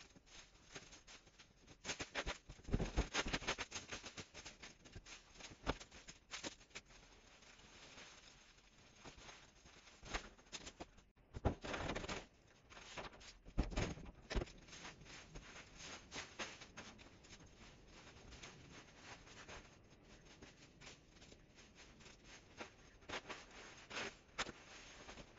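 Rustling and scraping of hedge clippings being gathered up by hand and with a garden rake: irregular clusters of crackles and scrapes, with a few louder bursts.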